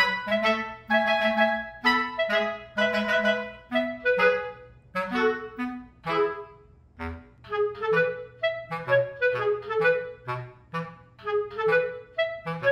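Background music: a bouncy tune of short, detached woodwind notes, with low bass notes joining in about halfway through.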